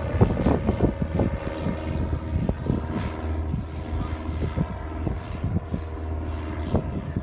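Piper Cub light plane flying overhead, its propeller engine droning steadily and slowly fading as it moves away.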